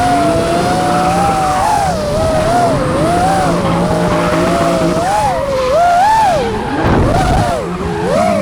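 Drift car sliding, with tyres squealing in a high, wavering whine that keeps rising and falling over the engine's revs; the low engine noise surges briefly near the end.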